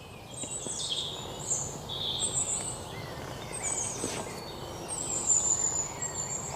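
Birds chirping and calling outdoors, with many short high chirps and trills throughout, over a faint steady background noise.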